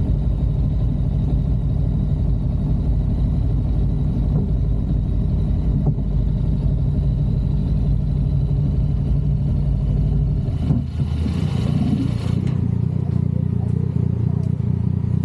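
Steady road and engine rumble of a moving vehicle, heard from on board. About ten seconds in the deepest part of the rumble drops away and a brief rush of noise passes.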